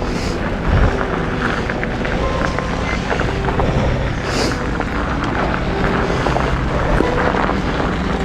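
Steady wind rush on the microphone while riding a fat bike, mixed with the bike's own rolling noise.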